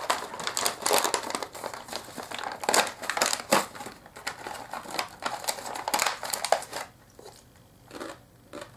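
Foil-lined paper snack packet of crispy coconut curls crinkling and rustling as it is opened and handled, dying away about seven seconds in.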